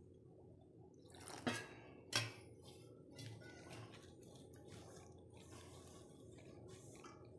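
Hands rubbing and mixing dry gram flour with spices in a stainless steel bowl: soft scratchy rustling, with two light clinks against the bowl about a second and a half and two seconds in.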